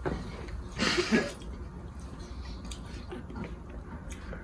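A baby's short, breathy vocal sound about a second in, followed by faint scattered clicks.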